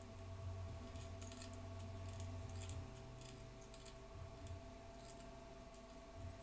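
Faint small clicks and scratches of thin enamelled copper wire being wound by hand around the pin of an LED tube, scattered through the first half, over a steady low hum.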